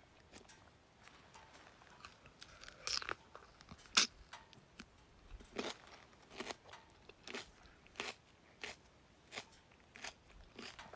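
A person bites into crisp raw cucumber with a loud crunch about four seconds in, then chews it with regular crunches, roughly one every three-quarters of a second.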